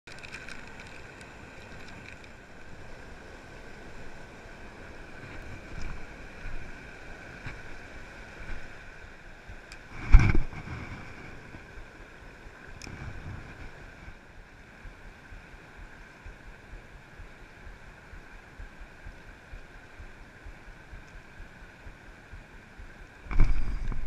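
Steady rush of fast river water with wind on the microphone. A single sharp knock comes about ten seconds in, and a sudden louder burst of noise comes just before the end.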